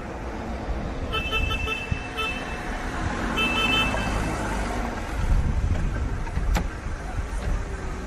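Rumbling traffic noise fading in, with short horn toots in quick runs about a second in and again near the middle, and a couple of sharp clicks later on.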